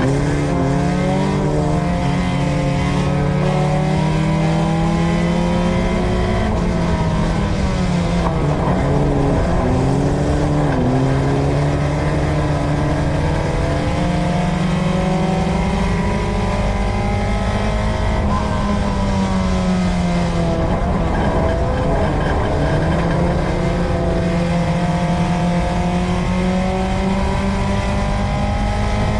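USRA Tuner dirt-track race car's four-cylinder engine heard from inside the car at racing speed, revving up along the straights and dropping in pitch as the driver lifts into the turns, several times over, under a constant rumble of tyres and chassis on the dirt.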